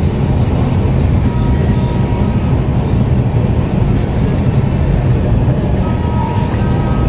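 Steady rumble of a passenger train running at speed, heard inside an air-conditioned LHB coach: a dense, unbroken roar of wheels on rail.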